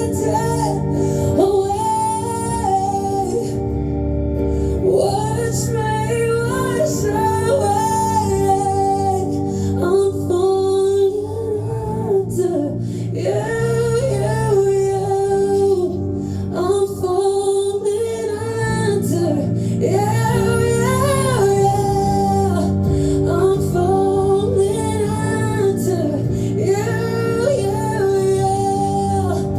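A woman singing a song live over acoustic guitar accompaniment, her sung lines rising and falling over steady strummed chords.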